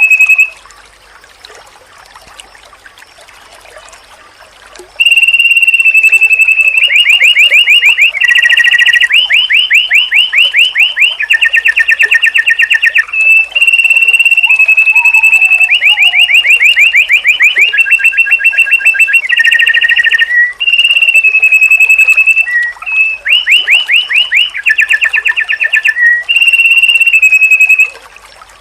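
Pleci (white-eye) bird song played as a masteran recording, loud. After a few quiet seconds it repeats held whistles alternating with fast, even trills that jump between two pitches, and it stops just before the end.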